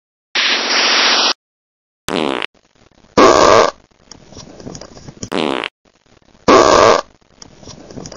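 Edited-in sound effects: a buzzing blare of about a second, then four short loud blasts in two pairs, the second pair a repeat of the first.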